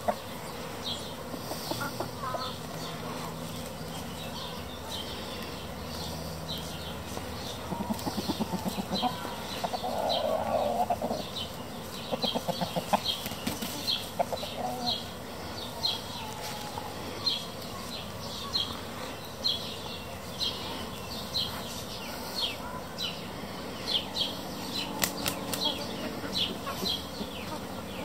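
Marans rooster and hens on grass: wing flapping and soft clucks, with short high chirps repeating through the second half.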